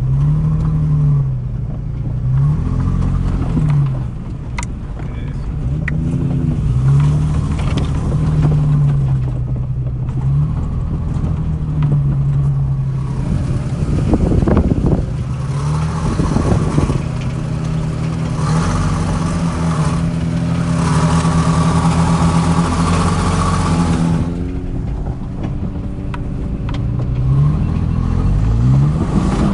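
Toyota FJ Cruiser's V6 engine heard from inside the cabin while driving off-road, its pitch repeatedly rising and falling as the throttle comes on and off. About halfway through, a rushing noise builds up and lasts around ten seconds.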